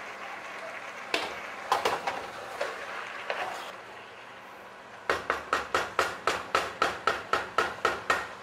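Kitchen clatter: a few irregular knocks, then a steady run of sharp ringing taps, about four a second, for some three seconds.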